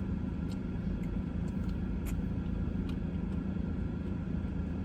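Car engine idling, a steady low drone heard from inside the cabin, with a few faint light clicks.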